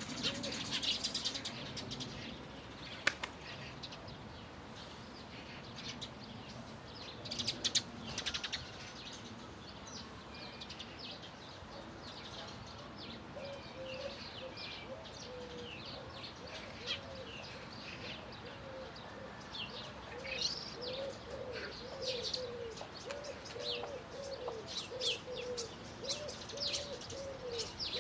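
Several songbirds chirping and singing in quick, short notes, with a low dove-like cooing that repeats steadily through the second half.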